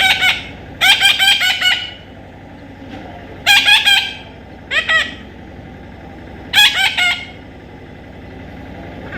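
Parrot calling in five short bursts of rapid, repeated harsh notes, the longest about a second in, over a steady low background hum.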